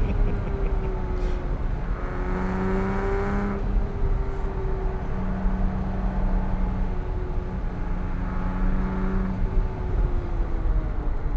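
Porsche 987.1 Cayman S flat-six engine pulling hard out of bends and easing off between them. Its pitch climbs with each burst of throttle, three times, and drops back in between.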